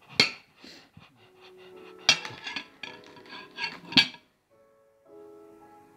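Knife and fork clinking and scraping against a plate as a small piece of food is cut, with a few sharp clinks about two seconds apart. Background music with held notes comes in after about a second and drops out briefly near the end.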